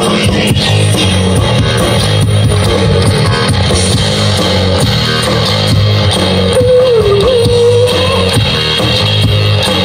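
Live rock band playing loud, with electric guitars to the fore over bass and drums. A held, wavering note comes in about two-thirds of the way through.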